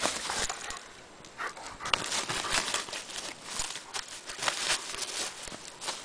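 Dry leaf litter and twigs crackling and rustling in irregular bursts as a German Shepherd paws and noses about the forest floor.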